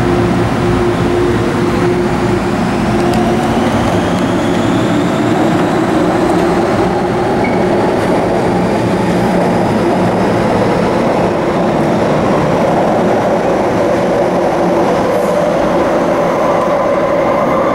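MTR Kwun Tong Line electric train departing an underground station, its traction motors whining in several tones that rise steadily in pitch as it gathers speed, over the continuous rumble of its wheels on the rails.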